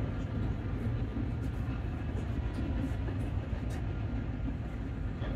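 Tram running on its rails: a steady low rumble, with a few faint clicks in the middle.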